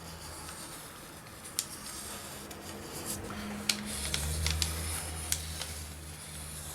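Scattered light clicks and taps over a low steady hum; the hum grows louder about four seconds in.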